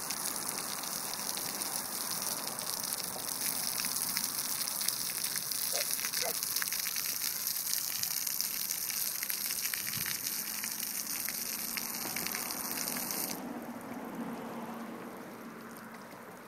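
Splash-pad fountain jet spraying water up from the ground and falling onto wet concrete: a steady hiss that cuts off suddenly about 13 seconds in as the jet shuts off.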